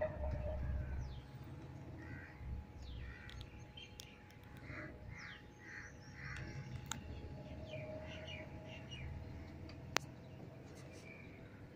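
Birds calling outdoors: a run of short, repeated calls through the middle, over a low rumble near the start, with one sharp click near the end.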